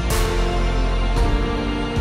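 Background music: soft, sustained instrumental notes with changing chords.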